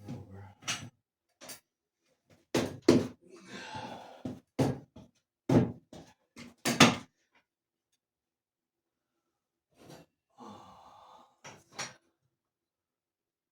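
Irregular knocks and clunks, with two short scrapes, from handling and fitting a steel jack post and its parts. The knocks come thickest in the first seven seconds, then stop for about two seconds before a scrape and a few more knocks.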